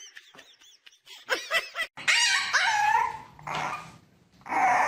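A puppy whining and yelping in short cries that bend up and down in pitch, louder from about two seconds in.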